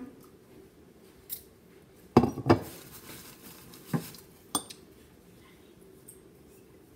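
Tall glass pitcher of watermelon lemonade set down on a table: two sharp knocks close together about two seconds in, then two lighter clinks of glass a couple of seconds later.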